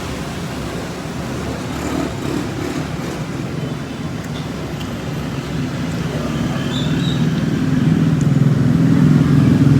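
Road traffic: a motor vehicle's engine rumbling, growing louder in the last few seconds as it comes closer.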